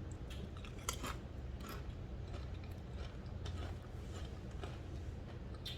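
Faint scattered clicks and small handling noises of people eating at a table, over a steady low hum.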